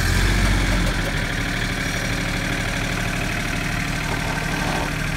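Mahindra 1526 compact tractor's three-cylinder diesel engine idling steadily just after starting, a little louder in the first second before settling.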